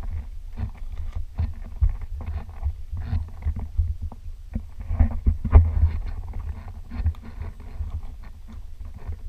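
Footsteps on gravelly, stony ground, about two a second, over a constant low rumble of handling and wind noise on the handheld camera's microphone.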